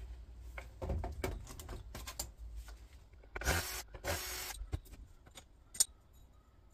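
Cordless drill-driver running in two short bursts about three and a half seconds in, backing a part off the back of a plastic flat-screen monitor. Clicks and knocks of handling the monitor casing come before and after, with one sharp click near the end.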